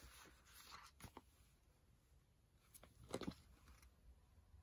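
Near silence: room tone with a few faint, brief clicks, about one second in and again around three seconds in.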